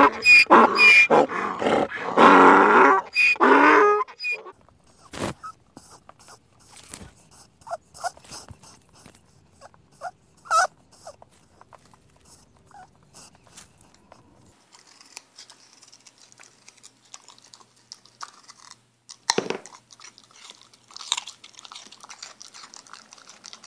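Wild ass braying, a rapid run of loud pitched calls that stops about four seconds in. Then a rabbit nibbling hay, a sparse series of small crunches and clicks. Then a dog gnawing a rubber flip-flop, soft chewing and crunching with one louder snap a little past the middle of that part.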